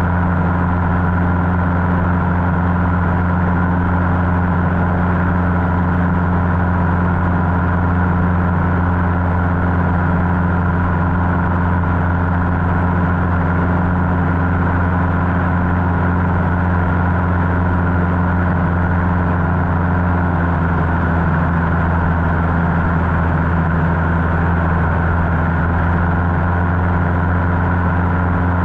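Cessna 150's four-cylinder Continental O-200 engine and propeller droning steadily in flight, the pitch easing slightly about twenty seconds in.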